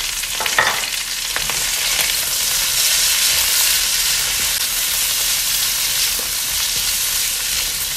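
Chopped vegetables sizzling in hot oil in a metal wok, steadily hissing while a spatula stirs and scrapes them around the pan.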